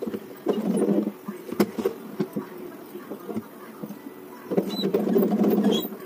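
Sewing machine stitching in two short runs of rapid, even clatter, the second, near the end, longer than the first. In between come light clicks and rustling as the fabric is handled.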